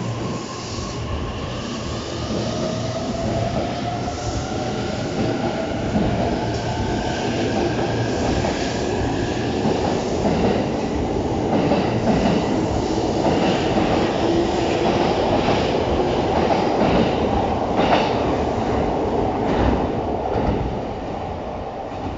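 JR East E657 series limited-express train accelerating away along the platform. Its electric traction motors give a whine that rises in pitch, and wheel clatter builds as the cars pass. The sound fades near the end as the last car clears.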